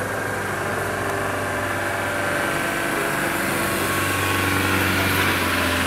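A vehicle engine idling steadily: an even low hum with a steady hiss over it.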